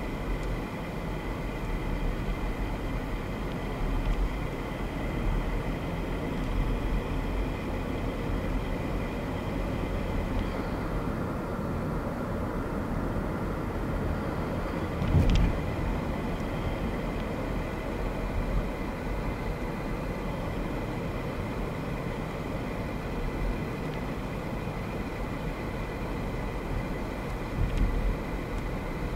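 Road and engine noise inside a Mercedes-Benz car's cabin while driving along a street: a steady low rumble, with a single thump about halfway through.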